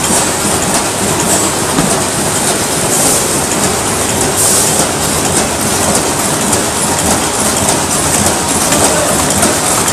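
Pillow-type flow-wrapping and cartoning packaging line running: a steady, dense mechanical clatter with rapid clicking.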